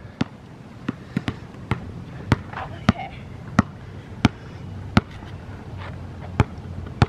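Basketball dribbled on a hard outdoor court: a steady run of sharp bounces, about three every two seconds.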